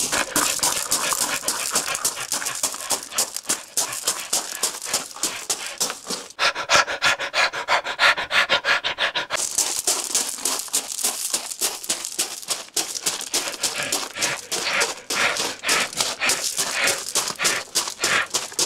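A person panting hard and fast, out of breath, in rapid rasping breaths. The breathing quickens into an even run of about eight breaths a second for a few seconds near the middle.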